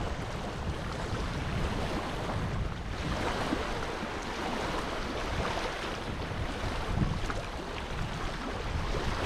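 Wind blowing over the microphone: a steady rushing noise with a rumbling low end that swells and eases in gusts.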